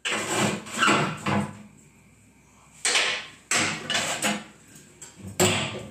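A metal poker jabbing and scraping at burning logs inside an open wood-burning stove, knocking against the stove: a string of irregular knocks and scrapes.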